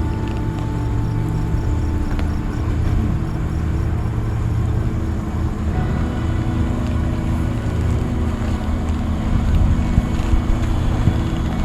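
An engine running steadily with a low, even drone, its level rising a little toward the end.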